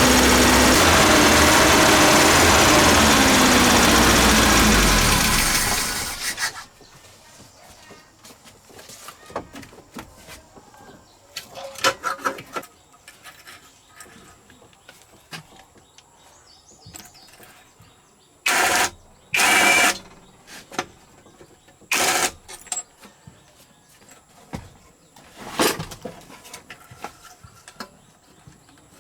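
Road roller's engine running loudly, then shut off and stopping abruptly about six seconds in. Scattered knocks and clicks follow, with a few short, loud bursts of noise near the end.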